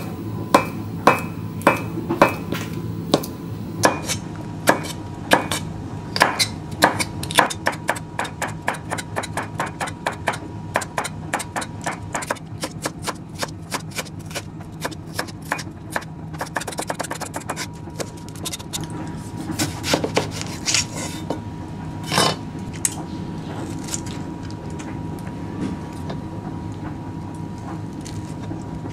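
Kitchen knife chopping vegetables on a plastic cutting board: a run of sharp knife strikes, about three a second through the middle, then slower, sparser cuts. A steady low hum lies underneath.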